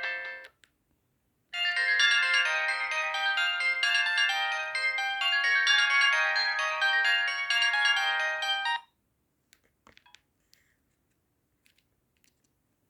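Sony Ericsson J120i mobile phone ringtones: one melody ends about half a second in, and after a second's pause another ringtone tune of quick, overlapping notes plays for about seven seconds and cuts off suddenly. A few faint clicks follow.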